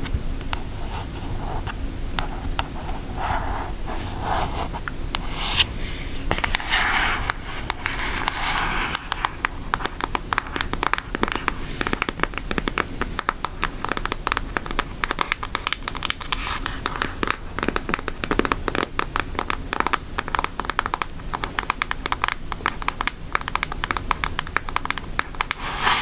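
Long fingernails scratching and tapping on the printed cardboard cover of an eyeshadow palette. It starts as a few scattered scrapes and turns about a third of the way in into a dense, rapid patter of small clicks.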